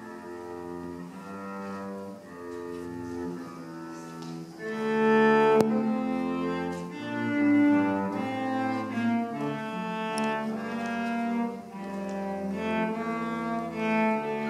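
Cello and double bass played with the bow, slow held notes moving from one to the next, swelling louder about four and a half seconds in. A small click sounds near the middle.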